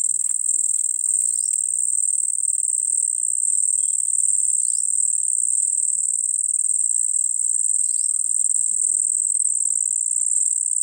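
Crickets trilling in a steady, unbroken high-pitched chorus. Faint short falling chirps come in about every three seconds.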